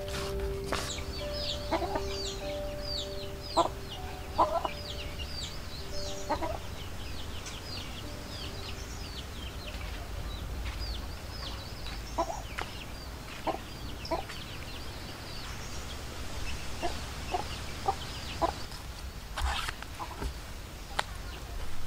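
Chickens clucking in short calls, with many high, quick falling chirps throughout, and a few sharp snips near the end that fit scissors cutting banana leaf.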